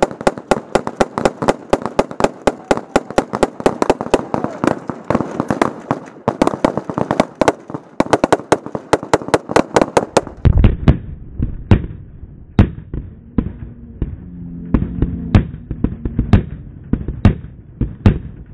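Rapid gunfire from several guns shooting together: a dense, irregular string of sharp shots. About ten seconds in the shots thin out and sound duller, with more low boom.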